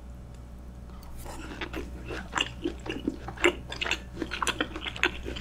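Close-miked chewing of a bite of crispy-skinned roast pork belly dipped in spicy sauce. It starts about a second in as a quick run of crisp, irregular crunches and clicks.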